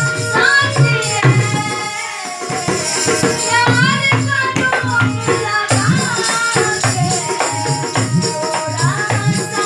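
A woman singing a Bhojpuri song while playing a harmonium, over a steady beat of low percussion strokes.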